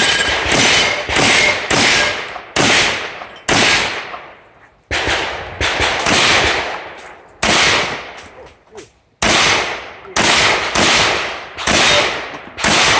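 12-gauge MKA 1919 semi-automatic shotgun firing rapid shots, about fifteen in uneven strings, each a sharp report with a short echoing tail. There are longer pauses between strings about four and eight seconds in.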